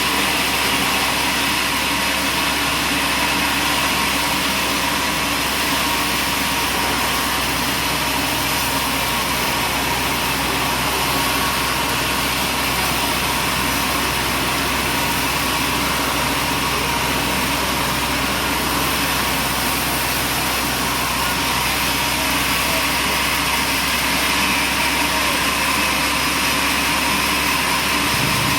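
Machinery running steadily: a continuous engine-like drone under a dense, even noise, with no breaks or separate impacts.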